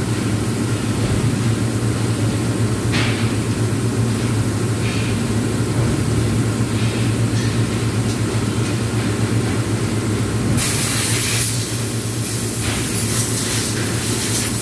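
Steady low hum of submerged arc welding equipment running, with a constant hiss over it. From about ten seconds in, several bursts of sharp, loud hissing.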